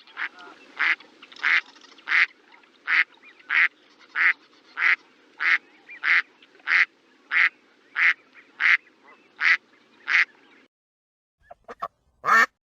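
A duck quacking in a steady rhythm, about one and a half quacks a second, for about ten seconds, then stopping. After a brief pause come a few short calls, the last one loud.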